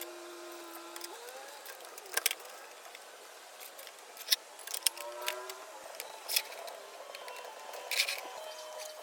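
Several sharp clicks and knocks, spread irregularly and loudest about four seconds in, over steady held tones that shift pitch now and then like quiet background music.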